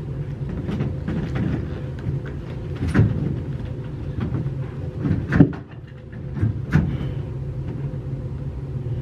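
Dull knocks and thumps as someone climbs onto a saddled mechanical horse ride and settles in the saddle: four louder knocks spread over several seconds, the loudest about halfway through, over a steady low mechanical hum.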